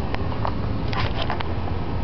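Steady low rumble, like a vehicle cabin on the move, with a few light ticks or taps about a second in.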